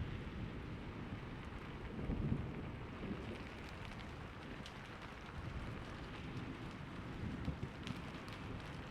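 Steady rain with low rolling thunder that swells about two seconds in and then fades, with a few sharper drops ticking later on.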